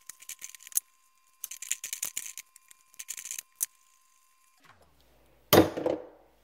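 Metal nut being spun off the threaded body of an old pop-up sink drain by hand: quick clicking and rattling in several short spells. A single louder knock about five and a half seconds in.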